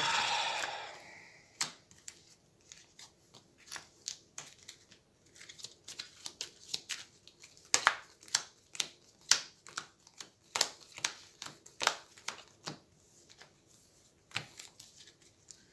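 Hero Realms playing cards being handled and laid down on a tabletop: a long run of short, light slaps and flicks, unevenly spaced at about one or two a second.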